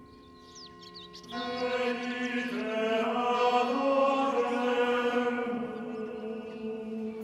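Slow sung chant with long held notes. It is faint at first, comes in fuller about a second and a half in, and steps up to a higher note about a second later.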